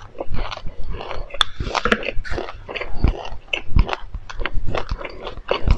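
Close-miked chewing of a mouthful of dry black sesame seeds: a dense, irregular crackle of tiny crunches.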